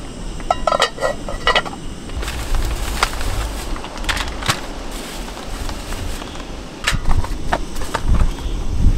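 Metal camp cookware clinking and ringing as it is set down, about half a second to a second and a half in, followed by scattered light clicks and taps as a plastic-wrapped package is handled.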